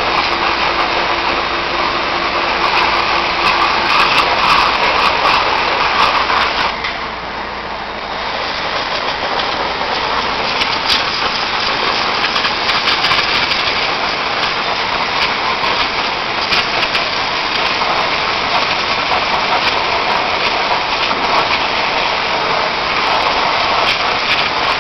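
Quiky 10 100 pressure washer's high-pressure water jet hissing as it blasts the steel bodywork of a backhoe loader. The spray dips briefly about seven seconds in, then picks up again.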